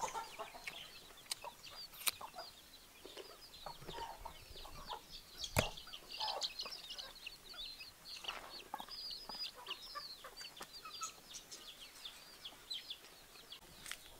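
Chickens clucking, with many short, high chirps running throughout and a sharp click a little past halfway.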